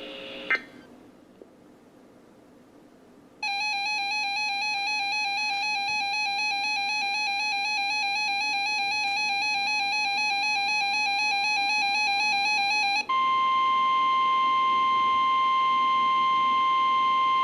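NOAA Weather Radio alert tones. After a faint click and a few seconds of quiet radio hiss, a warbling electronic alert tone sounds for about nine seconds. It gives way to the steady 1050 Hz warning alarm tone, which holds for about five seconds and signals that a new warning broadcast is about to follow.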